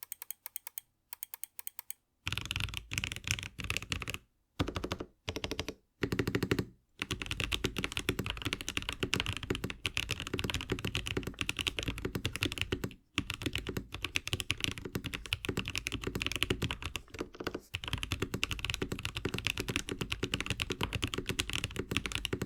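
Typing on a mechanical keyboard fitted with Akko V3 Creamy Purple Pro tactile switches, which have long-pole stems and a short 3 mm travel. First come a few separate keystrokes, then fast continuous typing from about two seconds in, broken by brief pauses.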